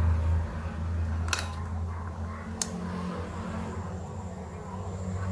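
Two sharp little clicks, about a second apart, as a small brass-and-steel crankshaft assembly knocks against the metal jaws of a bench vise while being set in place. A steady low hum runs underneath, and a faint high whine starts about three seconds in.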